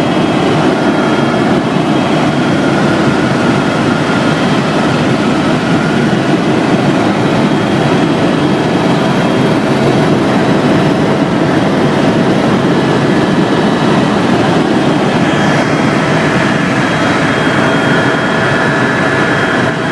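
Aircraft engine noise, a loud steady drone with a few faint steady tones above it.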